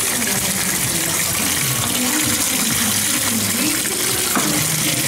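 Steady rush of circulating water from a running saltwater aquarium sump and protein skimmer. A single light knock comes near the end as the skimmer's collection cup is handled.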